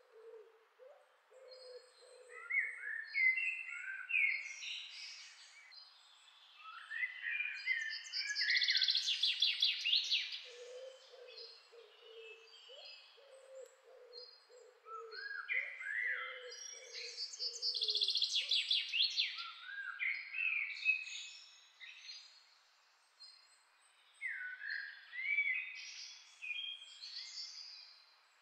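Birds singing: phrases of high chirps, rising notes and fast trills come again every several seconds, with a series of short low notes beneath them at the start and again in the middle.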